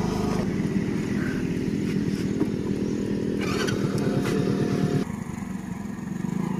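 Small motorcycle engine running at low, steady revs, with a fast even pulsing in its rumble. The sound drops and changes about five seconds in.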